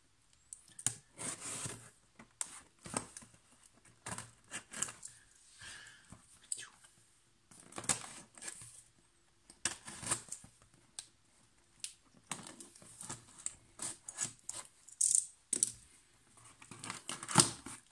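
A taped cardboard parcel being slit and torn open with a small blade: irregular scrapes, tears and taps of the blade and hands on the box.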